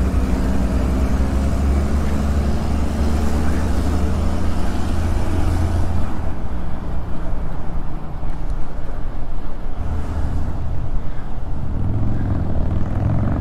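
Wind rushing over the microphone of a camera on a moving road bike, mixed with city traffic. A motor-vehicle engine hums steadily through about the first half, then drops away, with engine noise building again near the end.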